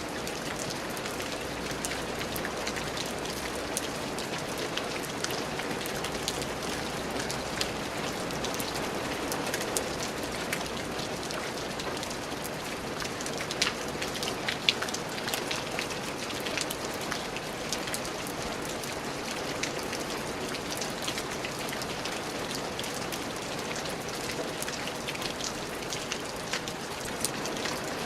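Steady rain falling, an even hiss with many distinct drop ticks and taps on a surface, a few sharper drops about halfway through.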